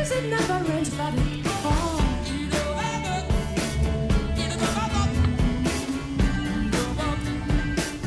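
Background pop-rock song: a singing voice over a steady drum beat and bass.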